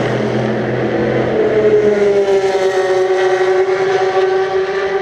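Race car engine running loud at high revs, its pitch sinking slightly over the first two seconds and then holding steady.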